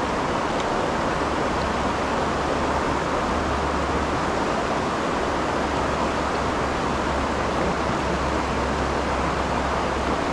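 Steady rush of fast river current and rapids around a kayak: an even, continuous water noise with no breaks.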